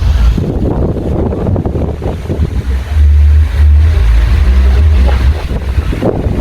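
Air from a Ventisol 50 cm wall fan buffeting the microphone: a heavy, uneven rumble that swells and eases.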